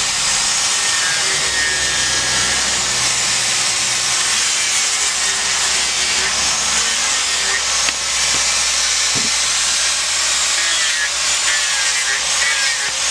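Handheld angle grinder running with its disc against a block of wood, grinding away wood to rough-shape a carving: a steady, loud grinding hiss with a faint whine that wavers in pitch.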